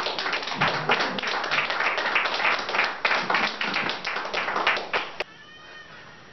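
Audience applauding, a dense patter of many hands clapping that cuts off abruptly about five seconds in.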